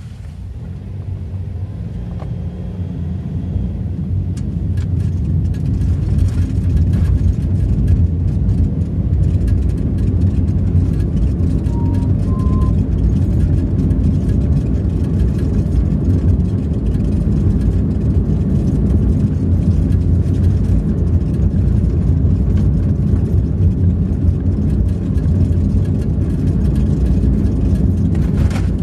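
Car engine and tyre rumble heard inside the cabin, growing louder over the first few seconds as the car picks up speed, then running steadily.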